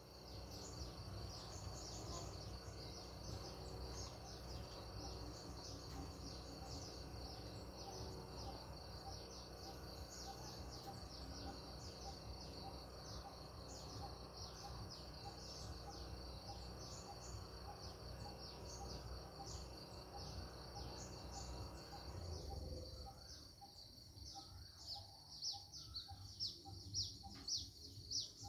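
Outdoor countryside ambience of birds chirping: a dense, continuous run of high, rapid chirps over a low rumble that falls away about three-quarters of the way through. Near the end a bird calls louder in quick repeated chirps.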